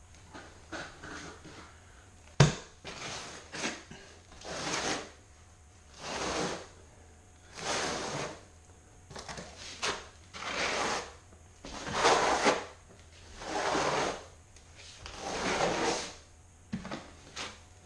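Steel notched trowel scraping thinset mortar across Kerdi membrane in long combing strokes, one swish every second and a half or so. A single sharp knock sounds about two and a half seconds in.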